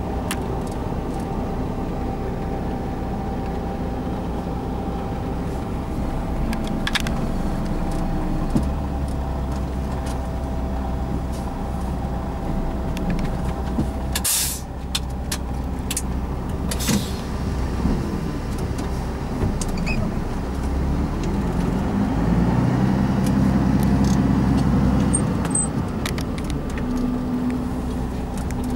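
Heavy diesel vehicle engine running steadily, with two short hisses of air about halfway through. The engine works harder and louder for a few seconds near the end.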